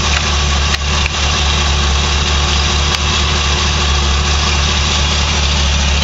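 1979 Ford Bronco V8 idling steadily, heard up close under the hood; the engine is running with a miss. A couple of faint clicks sound about a second in.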